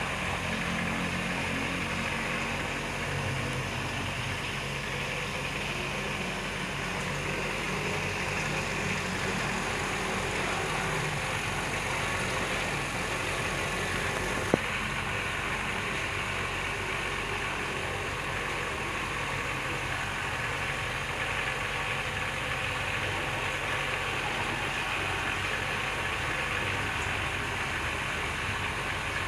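A steady mechanical hum, like a motor or engine running nearby, with a single sharp click about halfway through.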